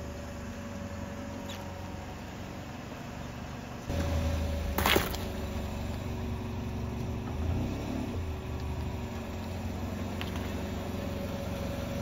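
A car's engine running steadily with a low rumble, which grows louder about four seconds in as the car rolls forward. About a second later comes one sharp crunch as the tyre crushes raw eggs, cracking their shells.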